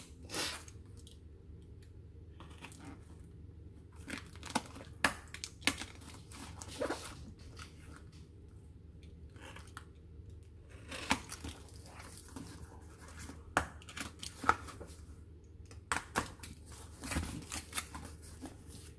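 Utility knife slitting packing tape on a cardboard box, with tape tearing and cardboard scraping in irregular bursts and a short lull midway.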